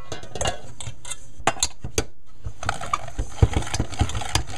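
Hand-cranked metal food grinder being turned as it mashes soft boiled split peas (dal): irregular metallic clicks and clanks, with a denser scraping from about halfway on.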